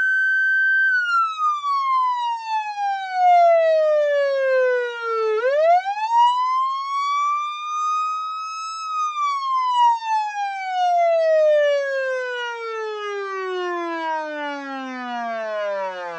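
Police car siren wailing as the end-of-countdown alarm. A single tone holds high, slides slowly down, climbs back up about five seconds in, then slides all the way down to a low pitch near the end.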